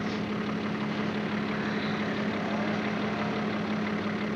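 Engine of an off-road 4x4 running steadily, a constant even hum with no revving.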